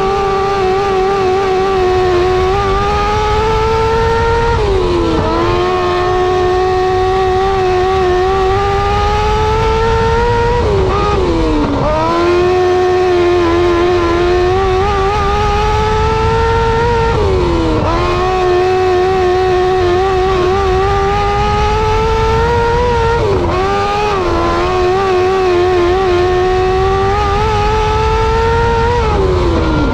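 On-board sound of a Restricted 600 micro sprint's 600cc motorcycle engine running hard at high revs. It lifts off sharply about every six seconds for a turn, then picks up again and climbs slowly in pitch along the straight.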